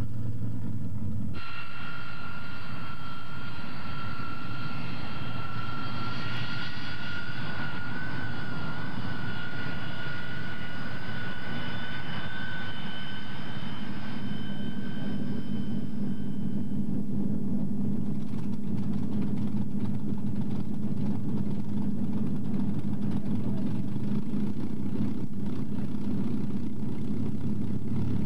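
Avro Lancaster bomber's piston engine starting up. A high whine rises slightly in pitch and fades out around two-thirds of the way through, while a low engine run builds from about halfway and continues steadily as the propeller spins up.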